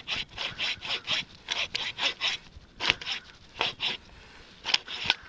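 Small hand-saw blade of a Stansport 6-in-1 survival tool sawing through wood in quick back-and-forth strokes, about three a second. The strokes pause about four seconds in and resume briefly near the end. The thin blade is flexing a lot as it cuts.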